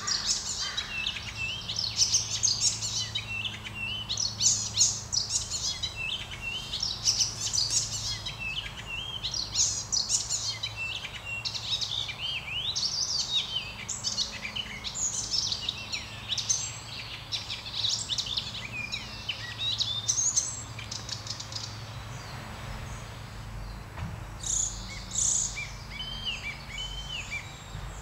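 Icterine warbler singing a fast, varied, nearly continuous song of chattering, whistled and harsh notes with many quick pitch glides, much of it mimicry of other species. After about twenty seconds the song thins to a few short, separate phrases near the end.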